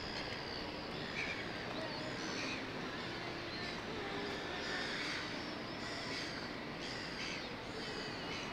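Several birds chirping and warbling over steady city background noise.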